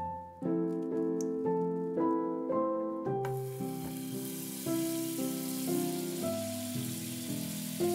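Hot olive oil starts sizzling about three seconds in as a folded tortilla wrap is laid in the frying pan, a steady hiss that carries on. Background music with plucked piano-like notes plays throughout.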